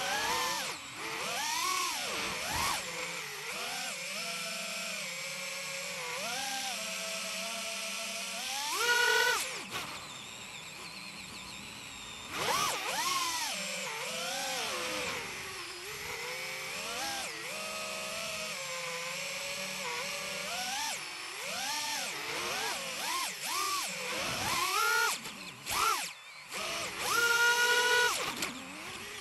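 A 5-inch FPV quadcopter's brushless motors and 5x4.3x3 tri-blade propellers whine over a steady hiss, as heard from the drone itself. The pitch rises and falls with the throttle, and there are a few loud punch-outs near nine and twelve seconds in and again near the end.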